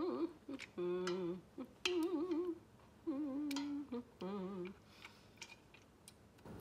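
A woman humming a wavering tune in short phrases, with a few light clicks of a serving spoon against the stainless-steel pot as she spreads sauce.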